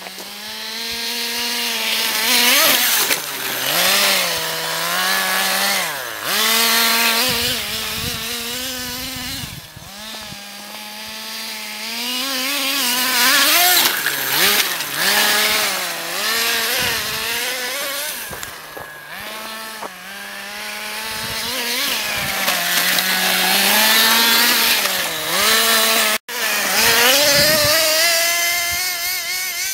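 Stock 2.5cc two-stroke nitro engine of an HPI Nitro MT radio-controlled monster truck, a high buzzing whine revving up and down again and again as the truck is driven, growing loud as it passes close by about halfway in. The sound drops out for an instant near the end.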